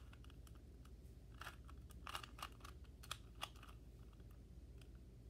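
Rubik's Cube being turned by hand: faint, irregular plastic clicks of its layers twisting, coming in a quick flurry from about one and a half to three and a half seconds in, then sparser.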